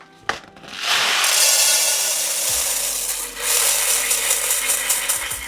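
Uncooked rice rustling in two stretches, as dry grains are poured and shaken out to be weighed into portions.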